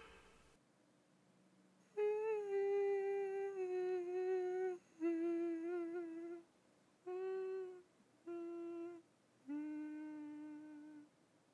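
A single voice humming a slow tune in five held phrases with short breaks between them, starting about two seconds in, the notes sitting a little lower as it goes on.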